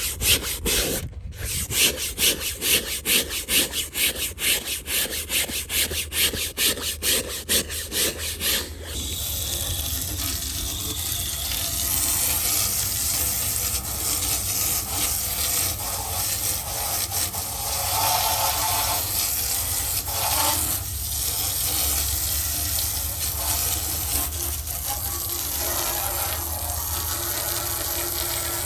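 Scrubbing brush worked back and forth on a surface being washed, about two strokes a second, giving way after about nine seconds to a steady rushing noise that lasts to the end.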